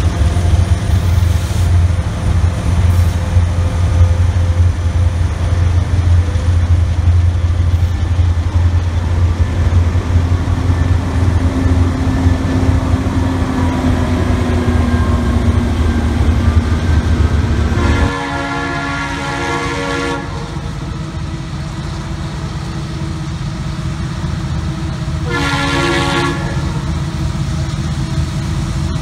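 Diesel locomotives rumbling heavily as a train passes, with the rumble breaking off suddenly about two-thirds of the way through. A locomotive air horn then sounds a chord: one blast of about two seconds, and a short toot near the end.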